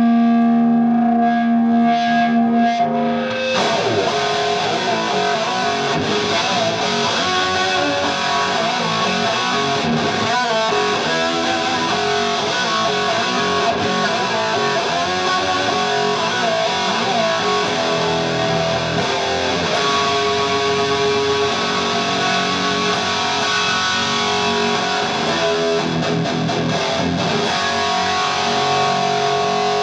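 Distorted electric guitar played loud through an amplifier and effects. It opens with steady, sustained tones, then goes into continuous riffing and strumming about three and a half seconds in.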